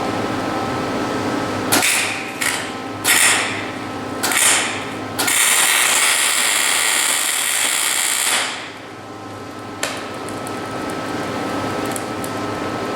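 Electric arc welder tacking the stripped splined axle shaft of a final drive: four short bursts of arc crackle, then a run of about three seconds. A steady hum runs underneath.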